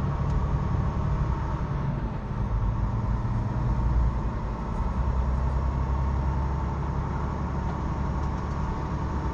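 Semi-truck's diesel engine and road noise heard from inside the cab as the truck drives along: a steady, low engine hum.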